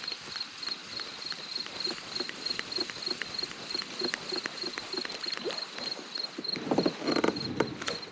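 Crickets chirping steadily in quick, even pulses, about four to five a second. Faint regular clicks run underneath, and a brief louder noise comes about seven seconds in.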